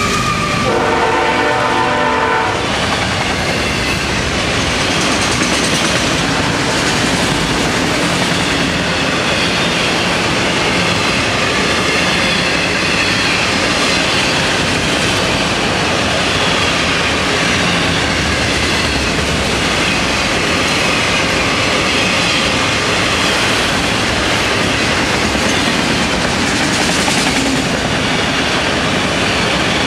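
Freight train of autorack cars rolling past: steady rumble and rattle of steel wheels on rail with clickety-clack over the joints. A locomotive horn sounds and dies away in the first two seconds or so.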